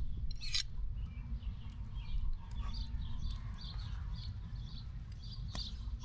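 Small birds chirping, short calls repeating several times a second, over a steady low rumble, with a few sharp clicks.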